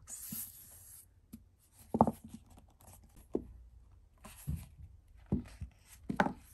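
A rigid cardboard gift box being handled and opened. A brief rubbing hiss comes first as the lid slides, then several scattered soft knocks and taps as the box and lid are moved and set down.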